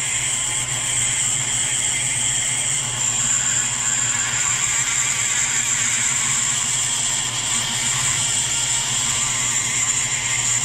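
Foredom flexible-shaft rotary tool running at speed, its mounted abrasive point grinding down the top of a steel bolt head; a steady high-pitched whine over a low hum.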